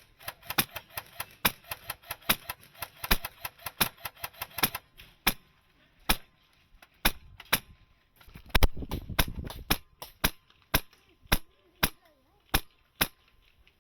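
Airsoft guns firing: a dense run of sharp cracks for about the first five seconds, then single shots every half second to second. A rougher noise lasting about a second and a half comes near the middle.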